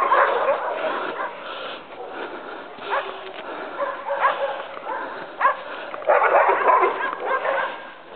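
A dog barking in short bursts at irregular intervals, loudest and busiest about six seconds in.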